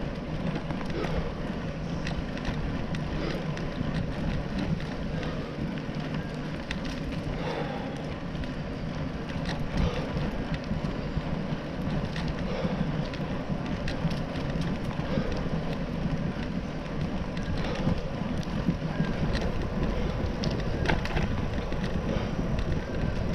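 Bicycle riding along a paved trail: a steady low noise of tyres and wind, with scattered short clicks and rattles from the bike over bumps.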